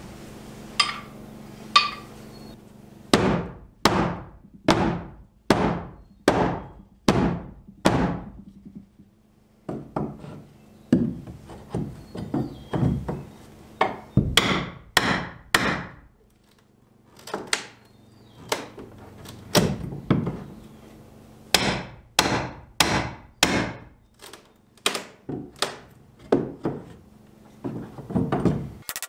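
Hammer striking a steel pry bar driven into plywood siding: runs of sharp blows about a second apart, with short pauses between runs, as the bottom edge of a T1-11 siding panel is knocked loose from inside the wall.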